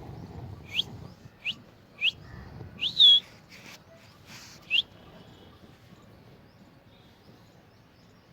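Baby parrot calling: five short rising chirps in the first five seconds, the fourth longer and louder, rising then dropping. Two brief hissy noises fall between the last calls.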